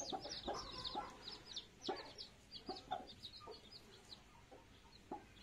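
Newly hatched chicks peeping in rapid, high, falling chirps, with a few low clucks from the mother hen. The peeping thins out over the last couple of seconds.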